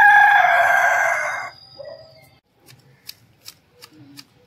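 A rooster crowing, one loud drawn-out call that dies away about a second and a half in. Then hand hedge shears snipping a hedge, a quick run of sharp clicks about three a second.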